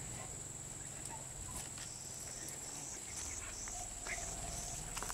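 Insects calling: one keeps up a steady high-pitched trill, and from about a second and a half in a second one joins, pulsing about three times a second, over a low rumble.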